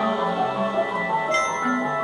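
Dance accompaniment music: slow, sustained notes moving in a stepwise melody, with a bright struck note ringing out partway through.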